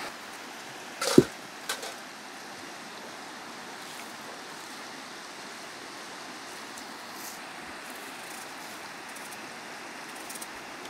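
Shallow river running steadily over rocks. A sharp knock comes about a second in, and a smaller one follows just after.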